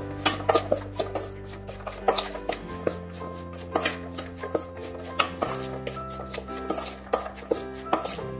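Metal spoon scraping and clinking irregularly against a stainless steel mixing bowl as chopped lemons and green chillies are tossed with spice powders, over soft background music.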